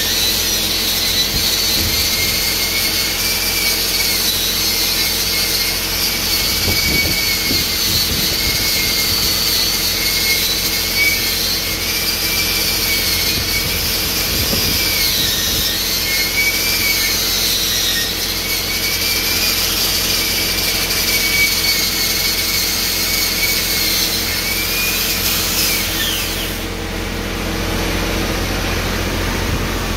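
Handheld electric angle grinder grinding a weld on a steel pipe joint, its high whine wavering as it is pressed against the metal and eased off. It stops near the end, leaving a steady engine hum underneath.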